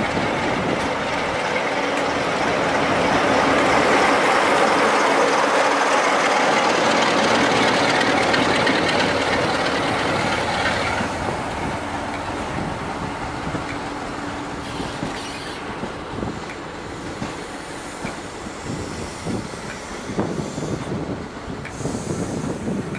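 Class 47 diesel locomotive 47712's Sulzer twelve-cylinder engine running loudly as it passes at the head of its train. After about eleven seconds it gives way to the coaches rolling by, with a quieter rumble and irregular clicks of wheels over the rail joints.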